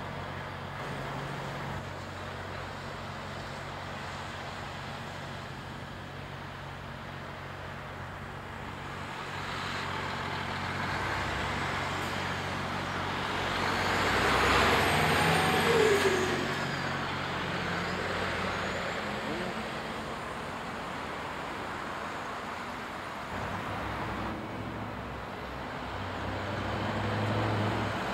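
Diesel lorries driving through a road junction among car traffic. The sound swells to its loudest about halfway through as a DAF tractor unit passes close by, fades, then builds again near the end as another lorry approaches.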